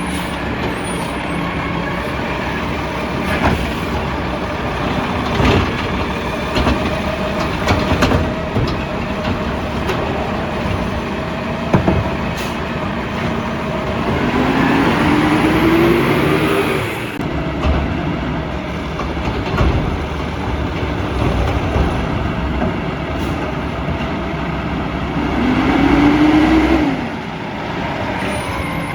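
Peterbilt 320 refuse truck with a McNeilus ZR body running, its engine revving up twice for a few seconds with a rising pitch, and scattered sharp clanks and knocks.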